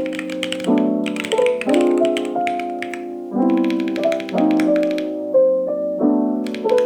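Lo-fi instrumental background music: soft, repeating keyboard chords with a light, crisp tapping beat that pauses briefly about five seconds in.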